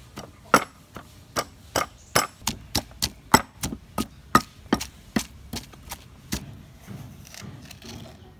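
Wooden pestle pounding garlic and chilies in a wooden mortar: a steady run of sharp knocks, about two to three a second, that stops about six seconds in, followed by faint handling noise.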